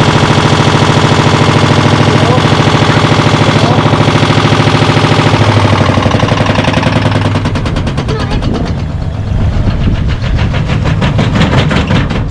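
Samsung washing machine on a fast spin with a deliberately unbalanced load, the drum knocking and rattling in a rapid, even beat. About halfway through the beat loosens and the knocks come further apart as the spin winds down.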